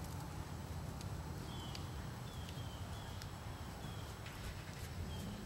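A horse trotting on arena sand under a steady low rumble, with short high chirps repeated irregularly, about one a second.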